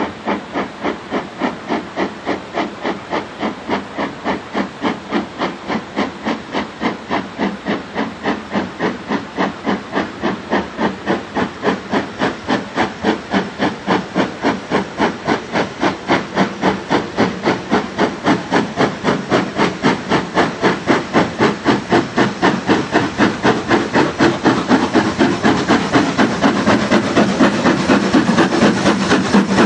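Ivatt Class 2MT 2-6-2 tank locomotive No. 41241 working a passenger train up the line, its chimney exhaust beating in a steady rhythm of about three beats a second, growing louder as it approaches.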